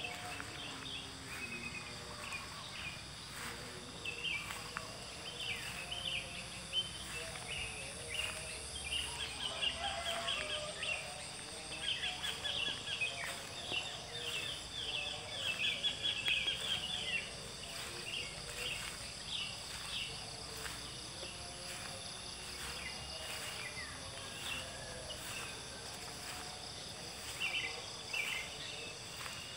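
Outdoor ambience of small birds chirping in many short, quick calls, busiest in the middle, over a steady high-pitched insect buzz.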